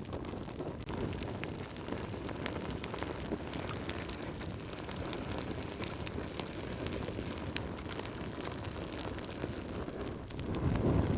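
Wood fire crackling in a fireplace: a steady low rumble of burning with many small sharp pops and snaps, the rumble swelling louder near the end.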